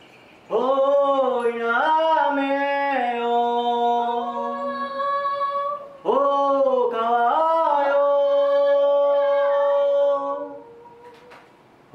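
A man singing unaccompanied in two long phrases. Each phrase opens with a swoop up into a held note, then slides through a few long sustained tones.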